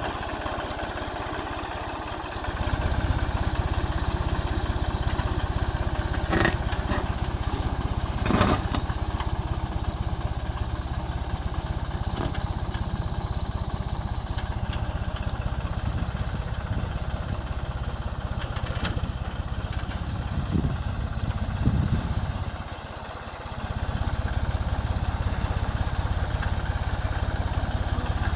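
Four-wheel-drive tractor engine running steadily under load as it drags a custom-made trenching blade through the soil. There are a few sharp knocks around six and eight seconds in, and the engine sound dips briefly about three-quarters of the way through before picking up again.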